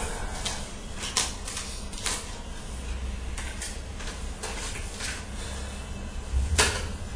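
A few scattered, irregular knocks and clatters of hard objects being handled and set down, about one every second or so, over a low background hum.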